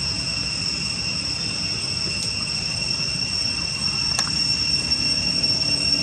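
Steady high-pitched insect drone, two unbroken whining tones, over a low background rumble, with a couple of brief faint clicks.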